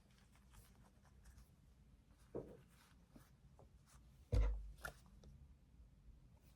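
Close-up handling noises from unboxing small gear: light scratching and clicks, a knock about two seconds in and a heavier thump a couple of seconds later as something is set down.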